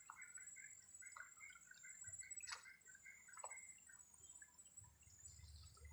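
Faint trickle and drip of a shallow stream running over stones, with a few soft clicks about a second apart.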